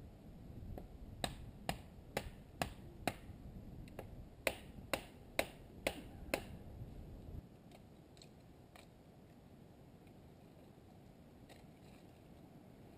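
Campfire crackling: about a dozen sharp, irregular pops from the burning wood over the first six seconds, then only a few faint ticks.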